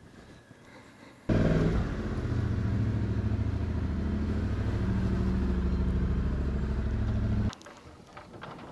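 Yamaha Ténéré 700's parallel-twin engine starting up about a second in, loudest at first, then settling into a steady idle; the sound cuts off suddenly near the end.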